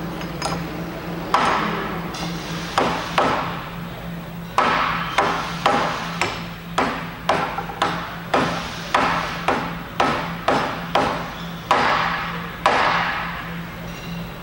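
Plastic-faced hammer driving the eccentric weight and its bearings down into the steel eccentric housing of a Minnich HV2PE hydraulic concrete paving vibrator: a run of about twenty sharp blows, roughly two a second at the busiest, starting about a second in and ending near the end.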